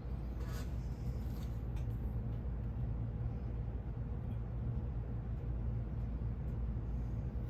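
Steady low hum, like a running motor or machine, with a few faint clicks and taps.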